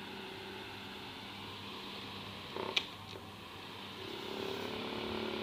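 YATT electric stand fan running: a steady rush of air over a low motor hum. A sharp click comes about halfway through, and the hum grows slightly louder near the end.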